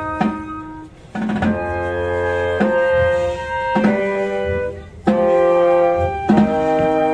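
Small marching processional band playing a march: held chords from flute, clarinet and bassoon, with snare drum strokes on the chord changes and short breaks between phrases.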